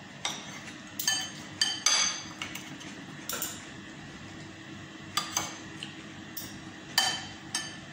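Metal fork and spoon clinking and scraping against a plate while eating, in about ten scattered sharp clinks that ring briefly, over a faint steady hum.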